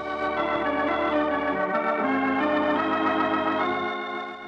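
Organ playing a short musical bridge of held chords that change about two seconds in and again near the end, where it drops in level. It is the scene-change bridge of a radio drama.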